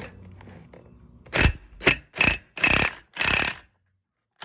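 Impact driver hammering in five short trigger bursts, each a little longer than the last, turning a freewheel removal tool to break the threaded freewheel loose from the dirt bike's rear hub. Light clinking of the tool being handled comes before the first burst.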